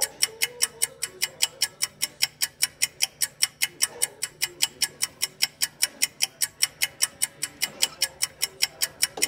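Rapid, even ticking, about five sharp ticks a second, keeping a steady beat.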